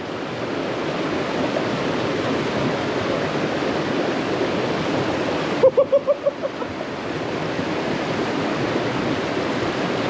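Mountain stream water rushing steadily. A short voice sound is heard briefly about six seconds in.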